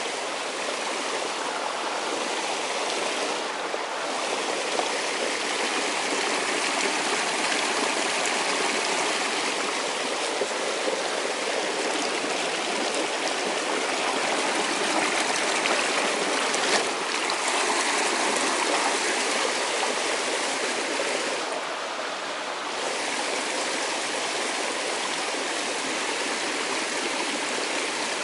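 Running water of a stream rushing steadily, a constant dense hiss that swells and eases slightly.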